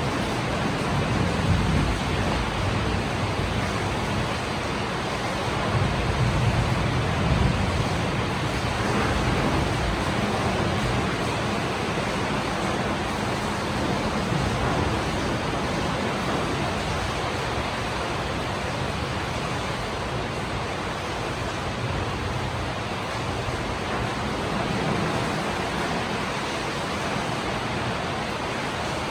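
Heavy rain falling steadily: an even, continuous hiss with a low rumble that swells a little a few times.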